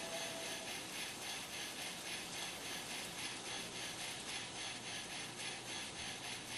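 Model steam-locomotive sound decoder playing its chuff: a steady, even, fast rhythm of hissing exhaust beats. A faint held tone stops under a second in.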